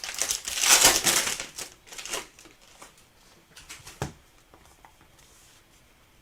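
Trading card pack wrapper being torn open and crinkled, loudest in the first two seconds, followed by a few softer clicks and a single knock about four seconds in.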